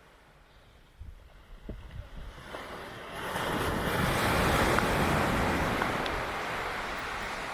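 Ocean surf: a wave breaks and its rush of water swells up about three seconds in, then slowly fades, with some low wind rumble on the microphone before it.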